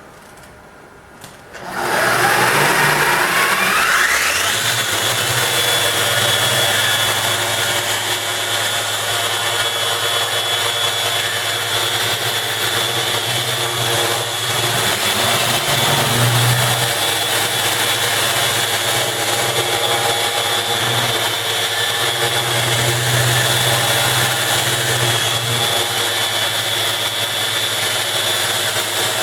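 Bosch 6-inch random orbital sander switched on about two seconds in, its whine rising quickly as the motor spins up, then running steadily while it sands the tabletop with 100-grit paper, weighted down with a 15-pound bag of shot.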